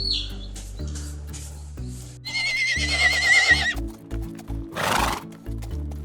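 A horse whinnying: one wavering, high-pitched neigh about two seconds in, followed by a short noisy burst near the end. Background music plays throughout.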